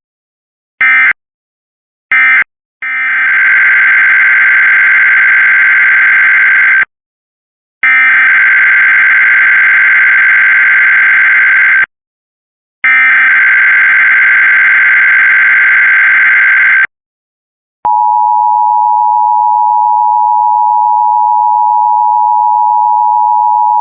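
Emergency Alert System digital data bursts. First come the last two short end-of-message bursts of one test, then the three long, screeching header bursts of the next alert, each about four seconds with a second's gap between. About eighteen seconds in, the steady two-tone attention signal starts and holds.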